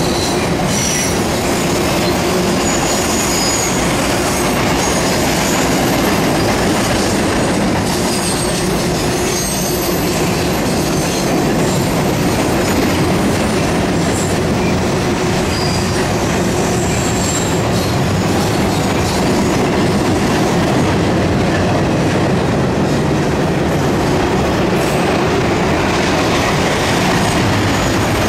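A train rolling past, a loud steady rumble of cars on the rails, with short high-pitched wheel squeals now and then.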